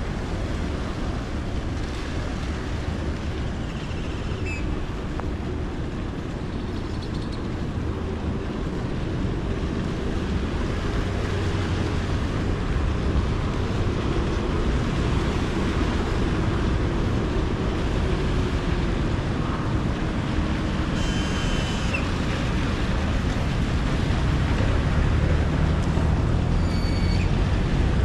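Steady rain-soaked street ambience: a constant rush of rain with road traffic, a vehicle engine passing through the middle and traffic growing louder near the end. A few brief high-pitched tones sound over it.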